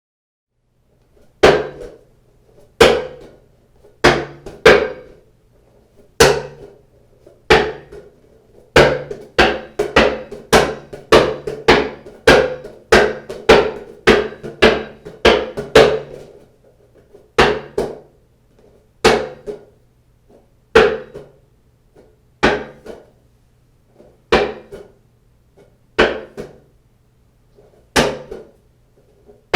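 A ball bouncing on a hard floor, dribbled with sharp separate bounces, each with a short ring. The bounces come slowly at first, quicken to about two a second in the middle, then slow again.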